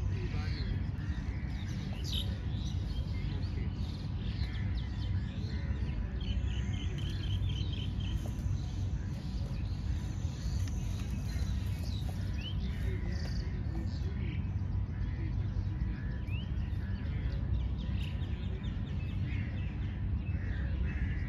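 Many small birds chirping and calling over one another, with quick short notes and little rising and falling phrases, over a steady low rumble.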